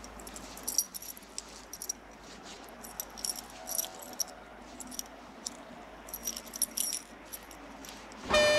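Light metallic jingling and clicking, in scattered clusters, over a faint steady hiss. Near the end a loud, sustained pitched tone with overtones starts abruptly.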